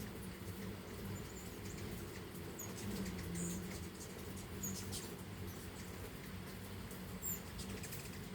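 Hummingbirds giving scattered short, high, squeaky chips, heard faintly over a low steady hum.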